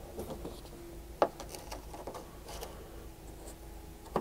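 Faint rubbing and handling of a plastic Ford Bronco tailgate vent as its retaining clips are pressed and the vent is pulled outward, with one sharp plastic click about a second in, over a faint steady hum.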